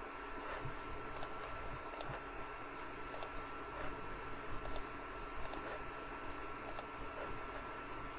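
Computer mouse clicking: short, sharp clicks, several in quick pairs, roughly one a second. Under them runs a faint steady hiss with a thin high whine.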